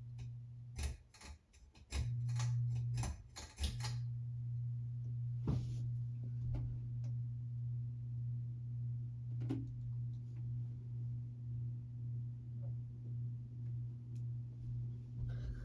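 Monte Carlo Premier ceiling fan: a quick series of pull-chain switch clicks in the first few seconds, the motor hum breaking off twice and coming back as the speed setting changes. The motor then runs on with a steady low hum.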